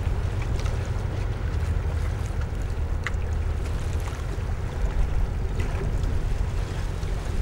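Harbour waterfront ambience: a steady low rumble with water and wind. A faint short high sound comes about three seconds in.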